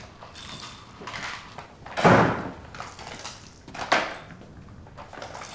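A door being shut with a heavy thud about two seconds in, followed by a sharper, lighter knock about two seconds later.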